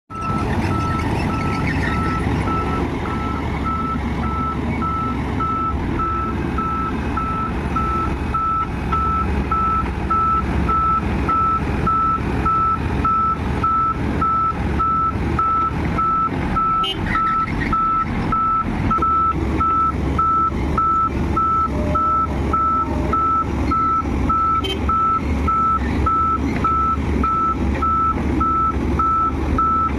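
A reversing alarm beeps steadily with evenly spaced single-tone beeps, over the low rumble of a heavy diesel machine's engine running.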